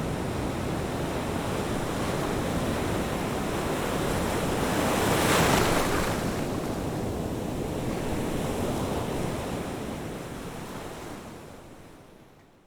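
Ocean surf washing onto a beach, one wave breaking loudest about halfway through, then the sound fades out near the end.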